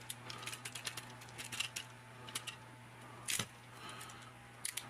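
Plastic Transformers figure (Combiner Wars Voyager Class Inferno) being handled and posed: scattered light clicks and taps of its plastic parts and joints, the loudest about three and a half seconds in.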